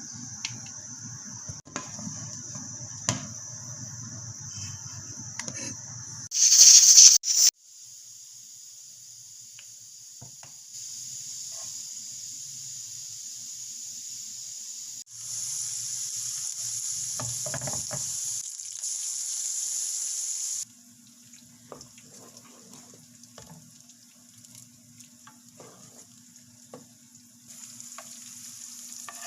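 Cooking sounds in several short cuts: food sizzling and frying in a pan, with stirring. A brief, much louder rush comes about six seconds in.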